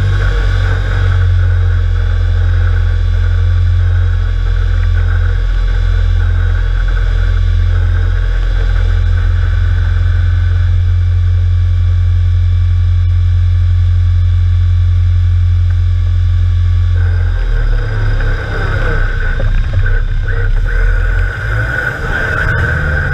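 Off-road trial vehicle's engine, heard from inside the cockpit, running steadily. About seventeen seconds in it turns uneven, its revs rising and falling as the vehicle gets moving.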